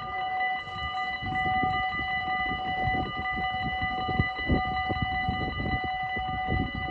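Four electric level-crossing bells of a Dutch automatic half-barrier crossing ringing without pause in a steady multi-pitched ring, the warning that the crossing is closing and the barriers are coming down. An irregular, gusty low rumble runs underneath.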